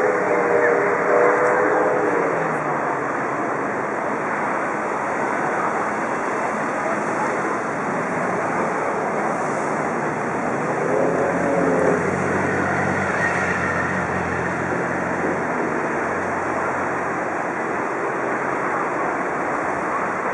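Steady rushing noise of outboard-powered motor boats running on the river, with a low engine hum in the middle stretch. Faint voices call out near the start and again about halfway through.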